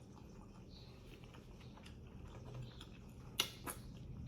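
Quiet chewing of a sandwich, with soft mouth clicks and two sharper clicks about three and a half seconds in.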